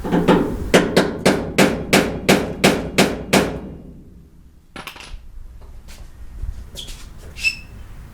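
Hammer rapping on a seized bolt, about a dozen sharp metal blows at roughly four a second to shock it loose after penetrating oil, then a few small metallic clinks.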